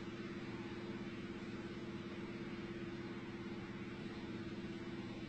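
A steady mechanical hum: a constant low tone over even noise, with no knock or impact.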